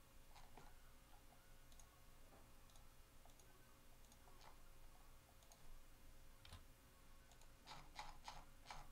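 Near silence, with faint scattered light clicks and a quick run of about four clicks near the end.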